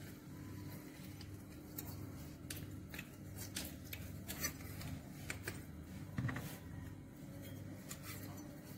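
Faint metallic clicks and taps of a stainless-steel hinged hand lemon squeezer being pressed over a bowl, scattered irregularly, against a steady low hum.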